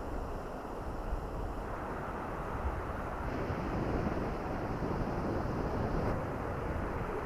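Strong wind blowing across the microphone, with waves washing on the shore beneath it.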